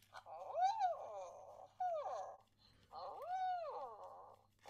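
WowWee MINTiD Dog-E robot dog playing three electronic dog sounds from its speaker, each rising and then falling in pitch, the last one the longest. The sounds are its response to having its head petted in the fortune-teller game, as it gives its answer.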